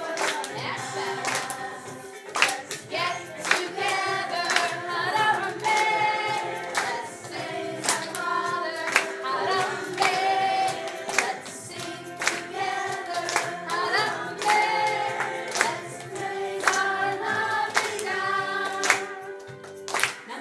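A children's choir singing a song together, with hands clapping along to the beat.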